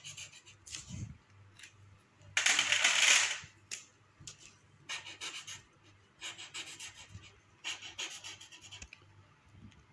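Felt-tip sketch pen scratching on paper in short, quick strokes as small stars are drawn, with a longer, louder rub about two and a half seconds in.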